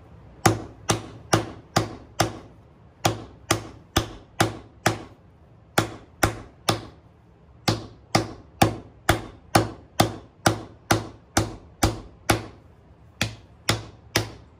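Hammer blows on a copper disc resting on a sandbag, sinking it into a shallow dish: sharp, dull knocks about two to three a second, in runs with short pauses between them while the disc is turned.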